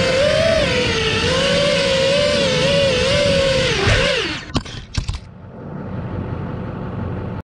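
FPV quadcopter's brushless motors spinning 5-inch props (HypeTrain 2207 2450KV motors with Gemfan 5144 propellers on 4S) whining, the pitch wavering with throttle. About four seconds in the whine falls away, two sharp knocks follow, and a quieter steady hiss runs on until the sound cuts off.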